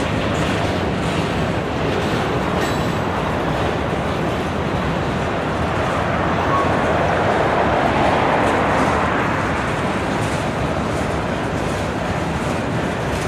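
Empty grain cars of a freight train rolling past, a steady rumble of wheels on rail that swells a little midway through.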